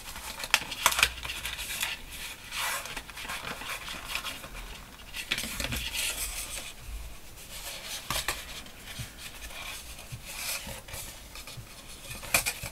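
Concertina-folded paper rustling and crackling as it is handled, pressed along its folds and lifted, with irregular rustles and a few sharp crinkles.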